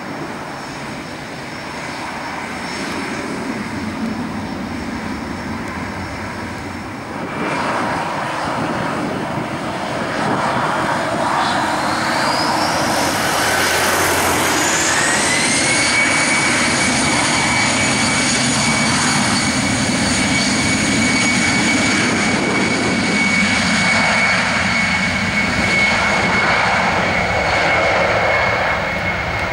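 Airbus A319's CFM56-5B turbofan engines spooling up to takeoff thrust. A rising whine climbs for several seconds about halfway through, then holds as a steady high whine over the engines' rumble as the takeoff roll begins.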